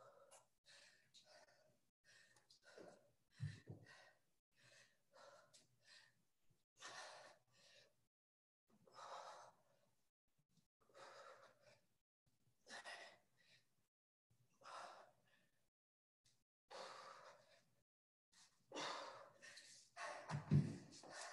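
A person breathing hard through a workout, with hissy exhales coming about every two seconds and getting stronger towards the end. A few deep thumps sound once early on and a couple of times near the end.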